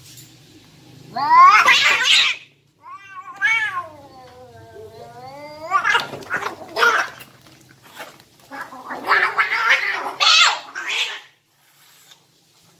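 Two domestic cats fighting: a loud rising yowl about a second in, then a long wavering yowl, then harsh screeching bursts as they grapple.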